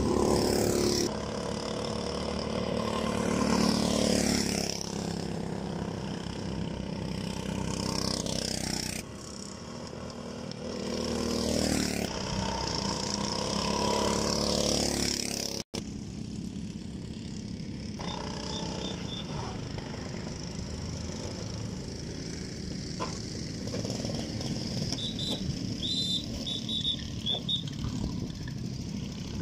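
Go-kart engines passing close by, their pitch rising on the approach and dropping away after each pass. After an abrupt cut about halfway through, a quieter steady engine sound from karts farther off, with a few short high chirps near the end.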